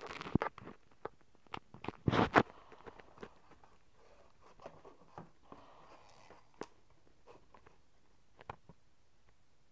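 Close, crackling rustles and scattered clicks and taps from hands handling the painting materials. The two loudest rustling bursts come near the start and about two seconds in, then only sparse taps.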